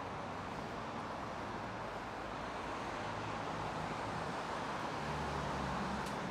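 City street traffic: a steady rush of passing cars, with one vehicle's engine hum coming up louder near the end.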